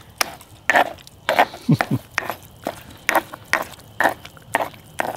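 Stone pestle knocking and grinding in a molcajete, crushing garlic and chile for salsa, in repeated strokes about two a second.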